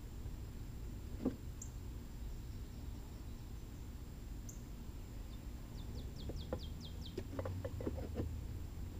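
A songbird gives a quick run of about eight short, falling chirps a little past the middle, over a steady low background rumble. Light knocks and clicks follow near the end as hands handle the wooden hive.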